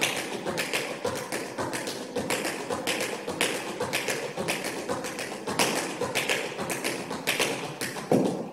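Tap shoes striking a wooden studio floor in a fast, continuous run of taps during an intermediate tap combination, with one louder stamp near the end.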